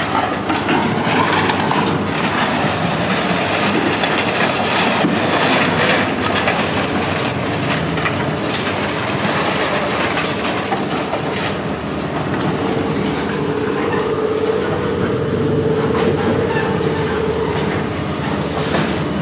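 Scrap metal clanking and scraping as a heavy truck is loaded, over heavy machinery running. A steady whine rises out of the noise for several seconds in the second half.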